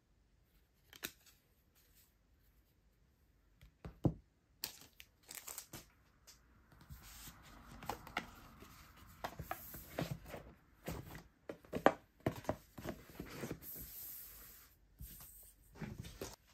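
Hands handling photocards and a boxed disc set on a table: a tap about a second in and a knock at about four seconds as things are set down, then a long stretch of rustling and tearing-like crinkling of paper and plastic packaging with small clicks.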